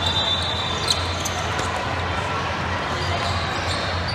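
Basketball bouncing on a hardwood court during a game, over the steady din and hum of a large hall. A long, high, steady squeak fades out about a second in.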